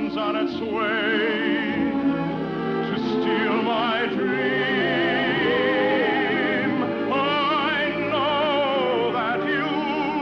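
Operatic-style singing with wide vibrato and long held notes, backed by an orchestra, in a musical number from a 1951 radio broadcast with a dulled, narrow top end.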